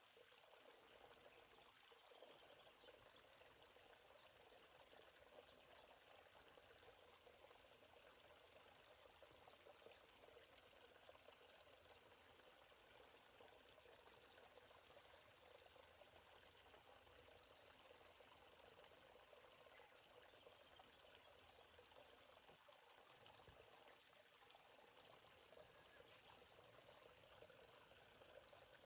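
Steady high-pitched chorus of insects, with a faint murmur of running stream water beneath.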